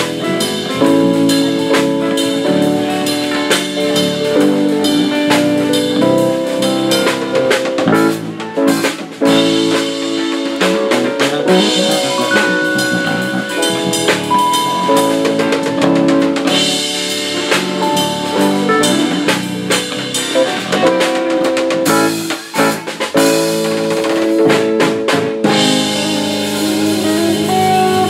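Live band playing: acoustic and electric guitars, keyboard and drum kit.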